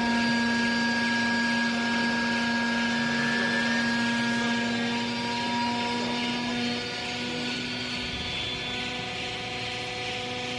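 Hydraulic baling press for used clothes running: a steady whine of its hydraulic pump and motor with a strong hum, which eases off about two-thirds of the way through.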